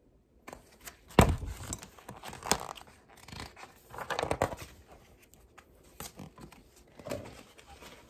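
Pages of a picture book being turned and handled: paper rustling and flapping in several irregular bursts, the loudest about a second in.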